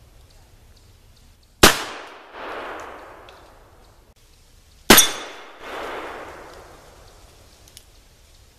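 Two shots from a Pietta 1851 Navy .44 cap-and-ball black powder revolver, about three seconds apart. Each is followed by an echo that rolls back about half a second later and dies away.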